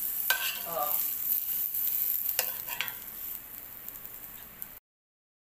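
Minced garlic and oil sizzling in a frying pan while a metal spoon scrapes and clinks against the pan, lifting out stir-fried broccoli florets. The sound cuts off abruptly near the end.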